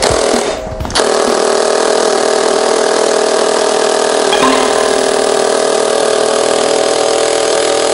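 Impact wrench hammering continuously on a rear brake caliper mounting bolt that is extremely tight, after a couple of short bursts in the first second.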